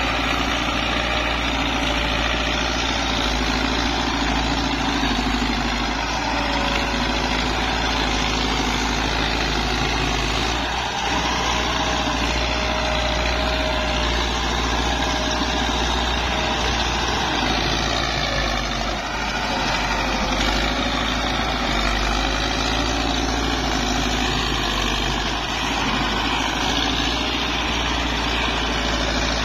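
Diesel tractor engine running steadily under load, pulling a plough through dry soil, its pitch wavering slightly as the load changes. The fuel pump has just been redone, and the owner judges the tractor to be running very well now.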